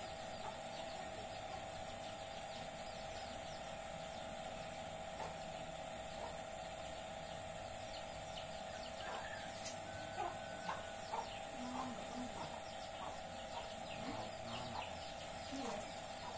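A chicken clucking in short, repeated calls, starting about halfway through and coming a few times a second, over a steady hum.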